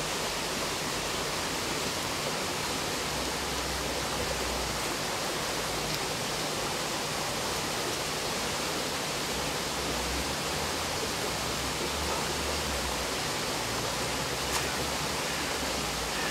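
Small rocky river rushing steadily over stones: an even hiss of running water.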